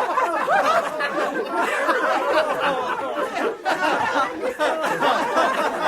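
A group of men laughing together, many voices chuckling and laughing over one another in a continuous, steady din.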